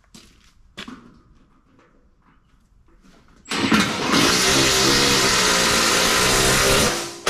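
Cordless drill driving a sheet metal screw into the car's steel body panel, running steadily for about three seconds from about halfway through and then stopping. A few light clicks come before it.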